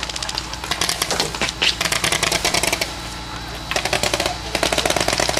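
Paintball markers firing in rapid strings of shots, with a short lull about three seconds in before the firing picks up again.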